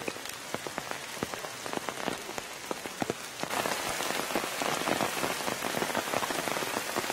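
Rain falling on forest foliage: a steady hiss with many distinct drops pattering, heavier and denser from about halfway through.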